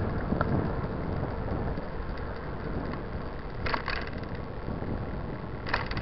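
Wind rush on the microphone and tyre rumble from a Soul SL 129 29er mountain bike rolling along asphalt, with two short clicks from the bike, one a little before four seconds in and one near the end.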